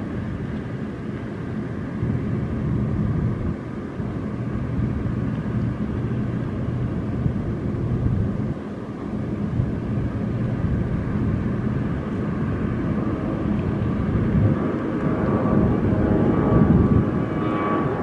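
Liebherr P996 backhoe dredger's diesel power plant and hydraulics running at work, a steady low engine drone. It swells near the end with a rising higher whine as the boom lifts the loaded bucket and swings it over the barge.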